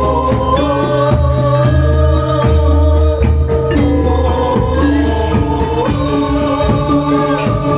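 Music with group singing over a band accompaniment of held bass notes and a steady beat.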